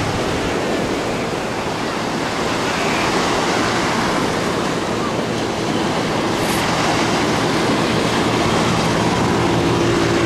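Black Sea surf breaking and washing in the shallows: a steady rushing noise. A faint low hum comes in near the end.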